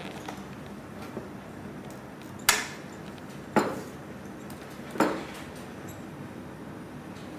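Metal parts and tools clinking during bicycle repair: three sharp knocks a second or so apart, each with a short ring.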